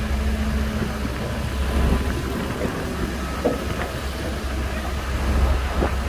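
Shantui bulldozer's diesel engine running steadily with a deep low rumble, with a few light knocks mixed in.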